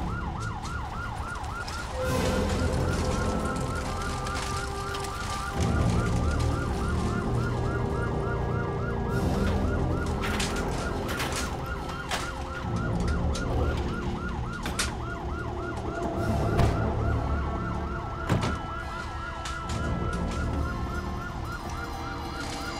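Ambulance siren sounding a fast yelp, its pitch sweeping up and down several times a second without a break, over a low rumble. A few sharp knocks come in the middle.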